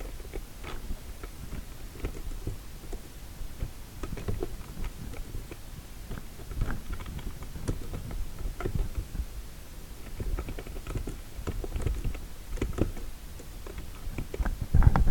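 Typing on a computer keyboard: irregular key clicks at an uneven pace, over a low background rumble.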